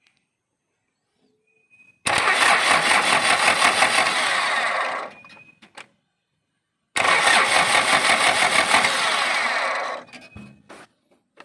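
An engine turned over by its starter in two bursts of about three seconds each, starting abruptly and stopping with a short tail-off. These are two start attempts on the FJ40's swapped-in Mazda 13B rotary engine.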